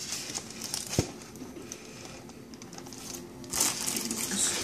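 Handling of a collectible statue's packaging: one sharp click about a second in, then packing material rustling and crinkling from about three and a half seconds.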